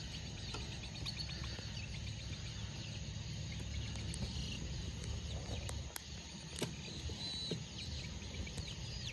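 Outdoor rural ambience: a steady low rumble with faint high chirps and a few light clicks.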